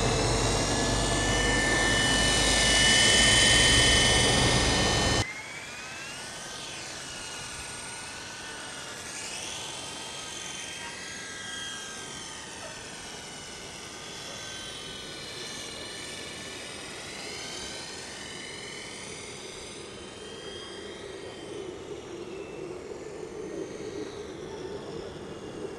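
Electric motor and rotor of an E-sky Honey Bee RC helicopter whining, loud and close for about five seconds. After a sudden drop it whines more faintly, its pitch rising and falling as the throttle changes in flight.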